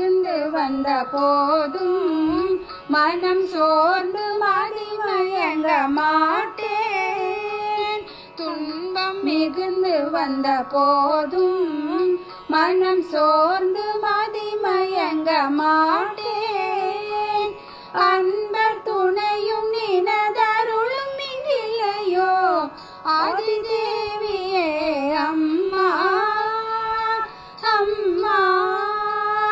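Women singing a Tamil devotional song in Carnatic style. The melody glides and bends in ornamented phrases with short breaks between them, over a steady drone.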